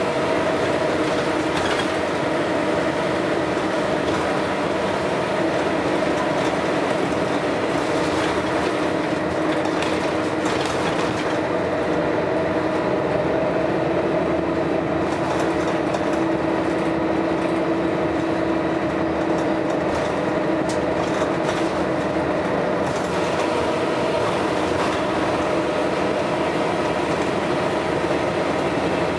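Scania L113CRL bus under way: its diesel engine runs with a steady drone that rises a little and settles back midway, while the bodywork and interior panels rattle.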